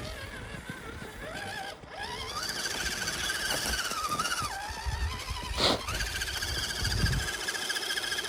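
Electric motor and gears of a Redcat Everest 10 1/10-scale RC crawler whining, the pitch rising and falling with the throttle as it works through snow. A single sharp knock about five and a half seconds in.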